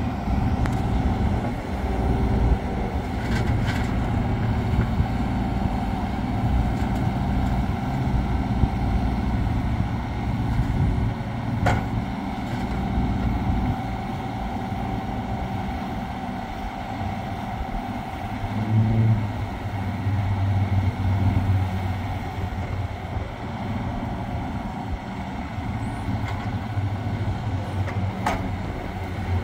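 Kubota U30-5 mini excavator's diesel engine running under hydraulic load as the boom, arm and bucket are worked, its pitch swelling now and then as the controls are moved. A few short, sharp clicks are heard over it.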